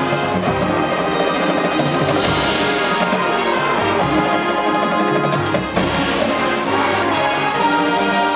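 High school marching band playing: sustained brass chords over drums and mallet percussion, with sharp accented hits about two seconds in and again about halfway through.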